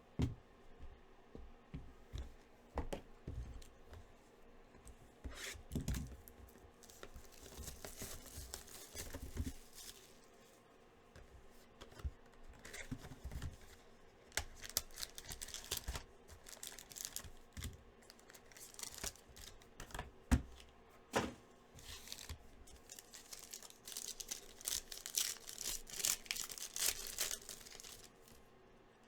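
Sports card packaging being torn open and crinkled, in irregular crackly spells, with a few sharp knocks of boxes or cards being handled.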